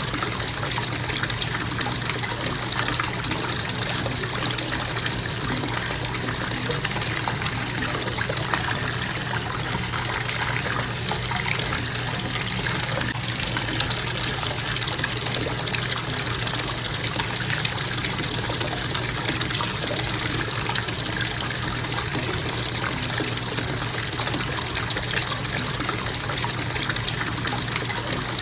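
Bathtub faucet running, a steady gush of water pouring into the tub.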